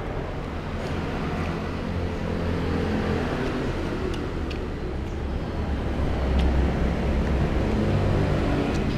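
A motor vehicle engine running with a low, steady hum that grows louder over the first six seconds or so, with a few faint clicks.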